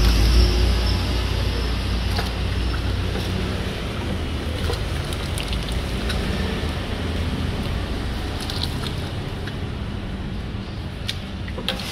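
A steady low rumble throughout, with a few light clinks of a metal ladle and spoons against ceramic bowls as soto broth is ladled from a large pot.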